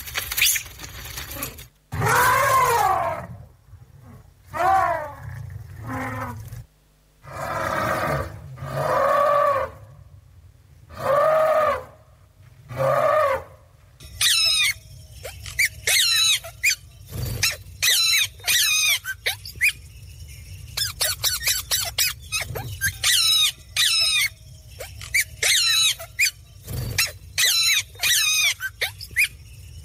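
Forest sound effects of animal and bird calls: first a run of separate long calls that rise and fall in pitch, then from about halfway, rapid high bird chirps and squawks in quick clusters.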